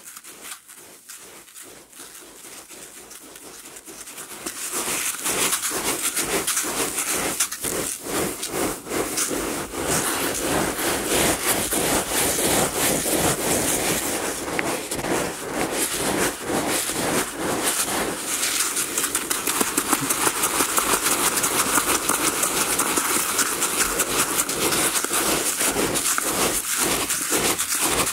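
Hands plunging, gripping and churning through a bucket of uncooked rice in a rice bucket grip exercise: a dense rustling hiss of dry grains shifting against each other and the plastic bucket, in repeated surges as the hands work. It is quieter for the first few seconds and grows louder from about four seconds in.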